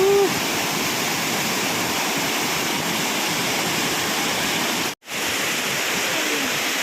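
Shifen Waterfall's roar: a loud, steady rush of falling water. It breaks off for a split second about five seconds in.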